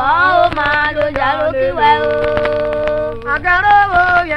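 Traditional Okpe Ogine music: singing in long held and gliding notes over sharp percussion strikes.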